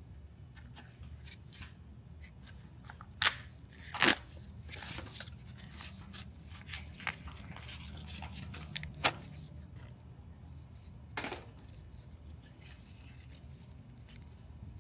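Sealed packet of FireWrap HRD resin-impregnated fibre tape being torn open and crinkled by gloved hands as the tape roll is pulled out: a few sharp rips and crackles, the loudest about four seconds in, over a low steady hum.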